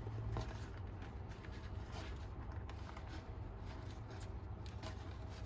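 Faint rustling and light clicks from hands handling the sunglasses case and its packaging, over a steady low hum.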